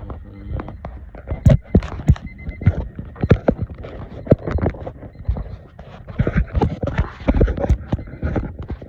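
A rapid, irregular run of sharp knocks and clicks, several a second, loudest about a second and a half in and again near the end.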